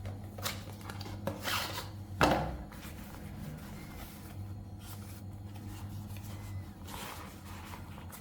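Handling noises: a few short rubbing and scraping sounds, then a sharp knock a little over two seconds in, over a faint low hum.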